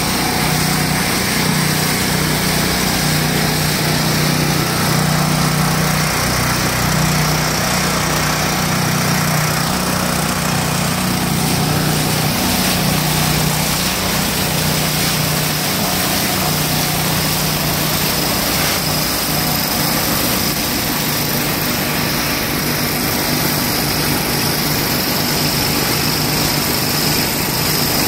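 Small engine running steadily at a constant speed, driving a hydraulic reverse-flow well drill, with muddy water and cuttings gushing and splashing out of the drill's discharge.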